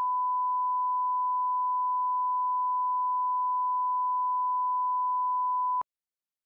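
A 1 kHz line-up reference tone, the steady pure test tone that runs with colour bars at the head of a video master. It cuts off suddenly near the end.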